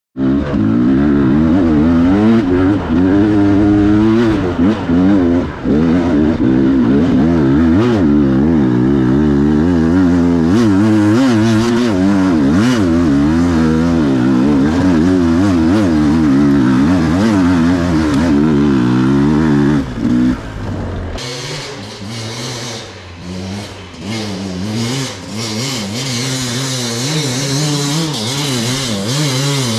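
Enduro motorcycle engine revving up and down while being ridden off-road, the pitch rising and falling every second or so. About twenty seconds in, the engine drops back and a steady hiss comes up over it.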